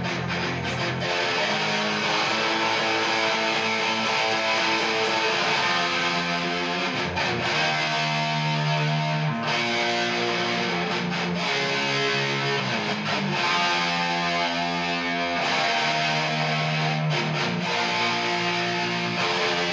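Electric guitar played through a small Line 6 combo amp: a repeating riff of held chords and single notes, loud and continuous.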